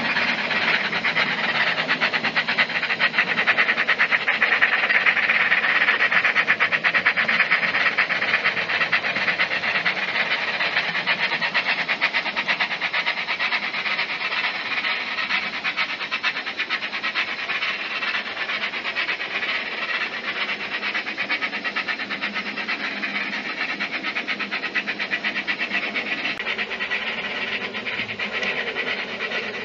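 Sound decoder of a Bachmann DCC Double Fairlie model steam locomotive playing rapid, continuous steam chuffs through its small onboard speaker, loudest in the first several seconds and easing a little as it runs on.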